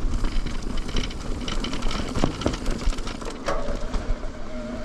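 Mountain bike rolling over a dirt trail, with tyre rumble and a steady irregular clatter of chain and frame over bumps. A steady hum joins about three and a half seconds in.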